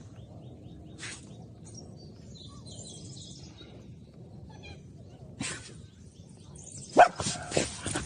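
A dog barks a few times in quick succession near the end, over a low background rumble.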